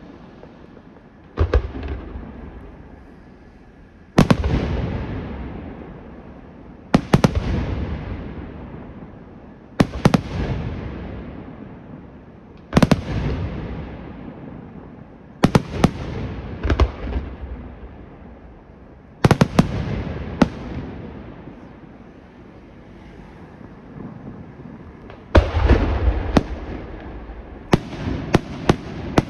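Aerial firework shells bursting overhead: loud bangs roughly every three seconds, some doubled, each followed by a long fading rumble as the report echoes away. A quick run of sharp cracks comes near the end.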